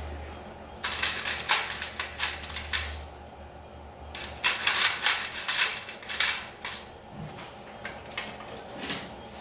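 Metal surgical instruments clicking and clattering in two runs of rapid clicks of about two seconds each, with a short burst near the end, over a low steady hum.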